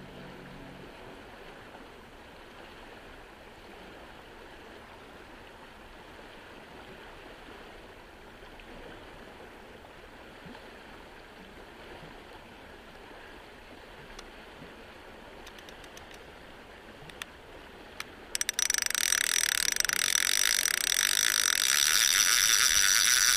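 Faint steady outdoor hiss with a few light clicks. About eighteen seconds in, a baitcasting reel is cranked fast, a loud, steady whirring gear rattle as the line is wound in.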